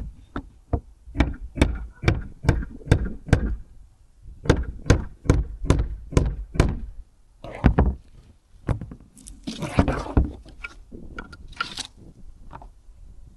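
Hammer blows in quick runs of about two or three a second, with short pauses between runs, driving at the old rear seal ring to get it off. Near the end the blows give way to a rougher scraping sound.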